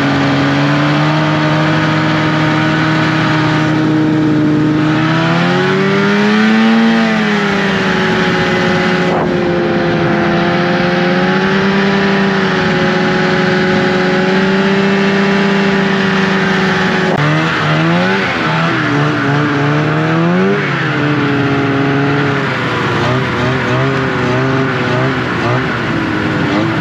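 Vintage snowmobile engine running under way, holding a steady pitch, rising once as the throttle opens, then several quick rises and falls as the rider blips the throttle.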